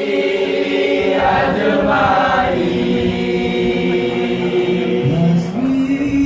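A group of boys and young men of a kompang troupe singing a chant together in unison, holding long notes that step from one pitch to the next. About five seconds in, a lower voice slides up into the line.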